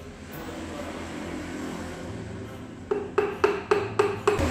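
Hammer handle tapping a piston down through a ring compressor into the engine block's cylinder bore: a quick run of about seven sharp taps that starts roughly three seconds in.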